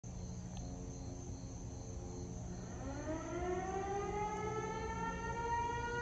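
Electromechanical Eclipse 8 and Model 2 civil-defense sirens winding up for the noon signal, over a steady low hum. About two and a half seconds in, a rising wail begins and climbs in pitch, levelling off into a steady tone near the end.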